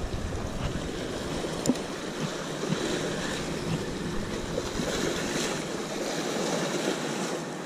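Steady wind and small waves washing at a bay shoreline, with a few faint clicks.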